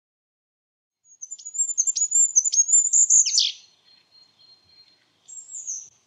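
Goldcrest (Regulus regulus) singing: a very high, thin run of rapid notes lasting about two and a half seconds and ending in a quick downward flourish, then a short second high phrase near the end.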